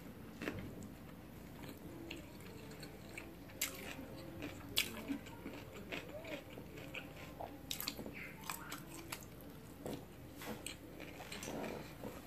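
Mouth sounds of a person chewing a fresh rice-paper spring roll, with scattered wet smacks and clicks.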